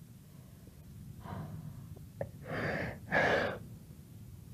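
A woman sobbing without words: a few breathy sobs, a faint one about a second in and two louder ones close together near three seconds.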